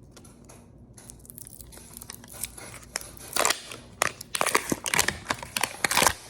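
Plastic wrapping on a toy capsule crinkling and rustling in the hands: quiet at first, then a dense run of sharp crinkles from about two and a half seconds in.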